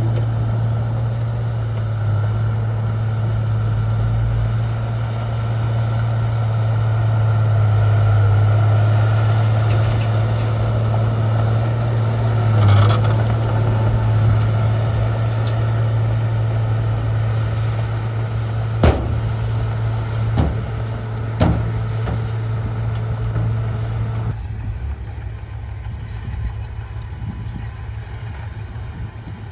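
Bulldozer diesel engine running steadily with a deep hum, with three sharp clanks in the middle. The engine goes quieter over the last few seconds.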